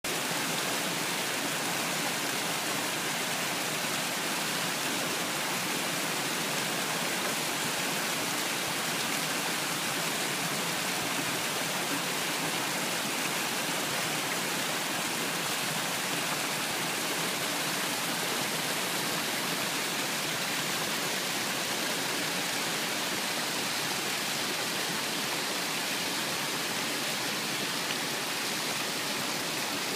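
Small stream rushing down a short cascade over rocks, a steady, even wash of water.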